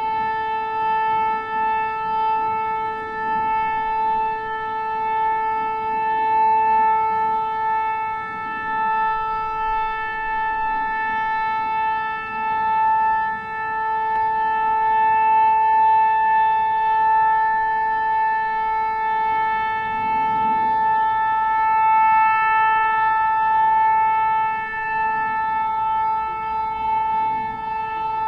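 Nuclear alarm sound effect: one steady, unbroken tone at a fixed pitch, its loudness wavering slightly.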